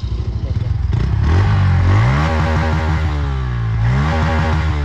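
Bajaj Pulsar N160's single-cylinder engine on its stock exhaust, revved from idle twice: the pitch climbs about a second in, holds, drops back, then climbs and falls again near the end.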